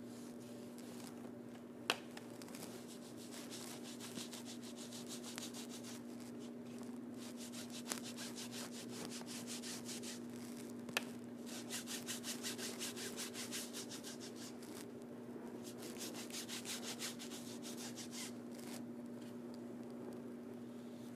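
Paintbrush scrubbing back and forth on a stage backdrop in quick, even strokes that come in runs. There are three sharp clicks along the way and a steady low hum underneath.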